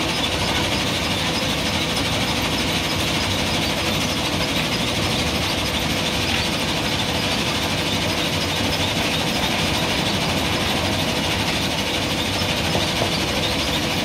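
JCB 3DX backhoe loader's diesel engine running steadily under hydraulic load as the backhoe arm digs sand, a constant mechanical hum with a faint steady whine.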